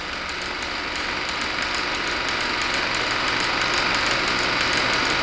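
Steady hiss of an old film soundtrack, swelling gradually louder, with faint rapid ticking over it.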